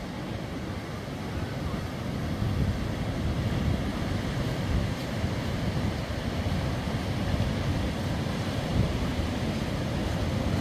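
Sea waves washing on the shore with wind buffeting the microphone, a steady rumbling rush.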